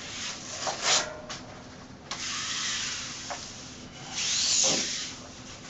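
Peel-and-stick wall mural sheet with its wax-paper backing rustling and rubbing against the wall as it is handled and lined up, in a few long swishing rubs, the loudest about four seconds in.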